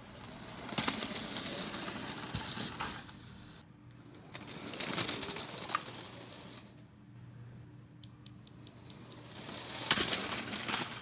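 Motorized Lego train running on plastic track and crashing into Lego vehicles three times, each crash a spell of plastic pieces clattering with sharp clicks.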